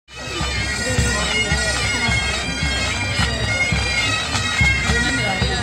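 Marching pipe band playing: bagpipes with steady drones under the chanter melody, and drums beating in time.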